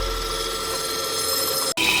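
Wood lathe running with a steady whine of several fixed tones. Near the end the sound cuts off abruptly and resumes as a different, higher-pitched steady running sound.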